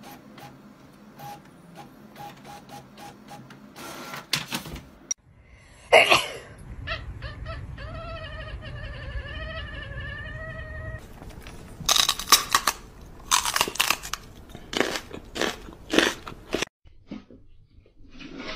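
A printer clicking and humming. Then a cat gives one long, wavering yowl of about four seconds, followed by a run of sharp crunching noises.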